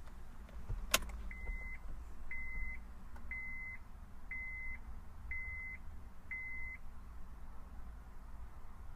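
Honda Accord dashboard chime beeping six times, about once a second, each beep short and at one steady pitch, just after a single click. It sounds while the dash button is held with the key at position II to reset the maintenance light.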